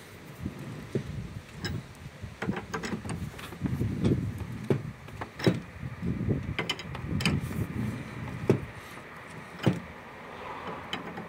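Fiat Doblo's spare-wheel winch being cranked anti-clockwise with its tool handle to lower the spare wheel on its cable: irregular metallic clicks and clunks from the turning crank.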